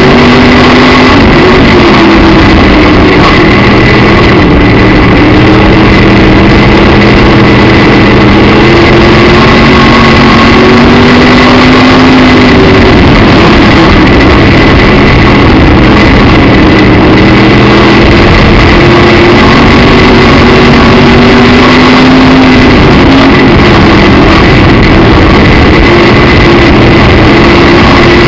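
Midwest Modified dirt-track race car's V8 engine, heard from inside the cockpit, running loud and continuously. Its pitch dips and climbs back up in slow cycles, about every ten seconds, as the throttle is eased and reapplied around the laps.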